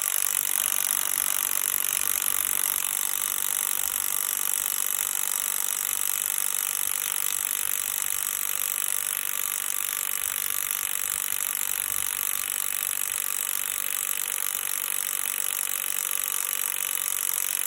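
Impact wrench hammering steadily on a bolt tightened to 150 Nm without loosening it: a tool rated at 630 Nm that fails to undo the bolt.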